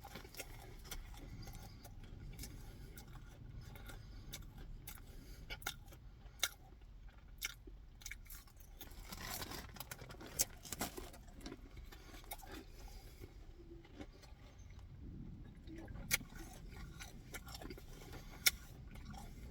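A person chewing and eating close to the microphone, with scattered mouth clicks and a few sharper snaps.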